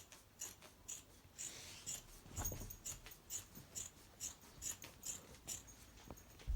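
Scissors snipping through the thick layers of a quilt in a steady run of short crisp cuts, about two a second, with a soft thump about two and a half seconds in.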